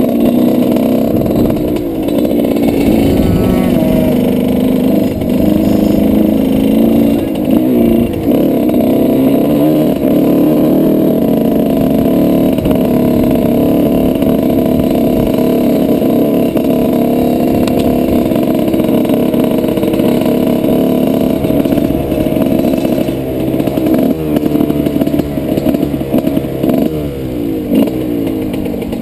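A 2003 Suzuki RM125's two-stroke single-cylinder engine running steadily as the dirt bike is ridden at low speed. The engine note turns choppier and a little quieter near the end.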